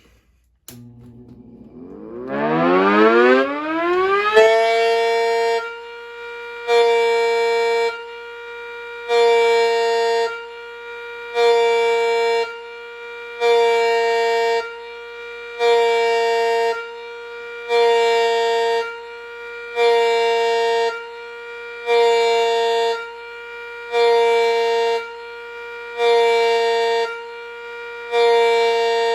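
Miniature A.C.A. Cyclone 125 model siren spinning up with a rising whine, then held at a steady pitch and pulsed by hand at its taped intake: the tone swells loud and drops back about every two seconds, a slow pulse signal.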